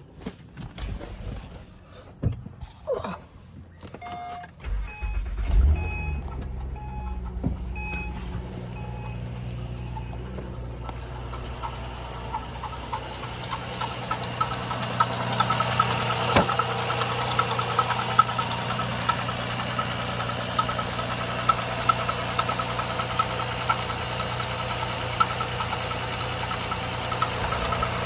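A few clicks, then the 2011 Acura TL's 3.7-litre V6 starts cold about four to five seconds in while a beeping tone repeats several times. It then idles with a fast, steady tapping from the engine, a noise the dealership could not trace.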